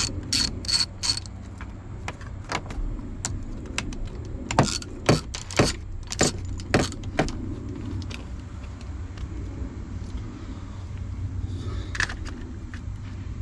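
Hand tools clicking and clinking against metal during steering wheel removal: a quick run of clicks at the start, scattered clinks, then a louder cluster of clinks around the middle, over a steady low hum.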